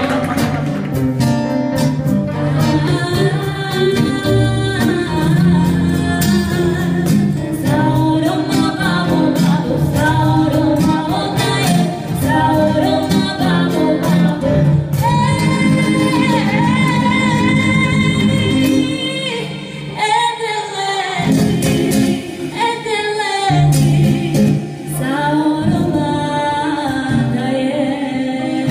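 Live acoustic band: a woman singing with acoustic guitars and a violin playing along.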